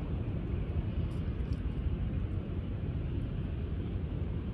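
Wind buffeting the microphone outdoors: a steady, fluttering low rumble with a few faint ticks about a second in.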